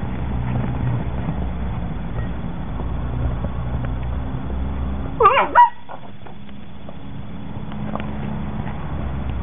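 Short high yelp from a German Shepherd puppy, with a few quick rising-and-falling squeals, a little over five seconds in, over a steady low rumble of wind on the microphone.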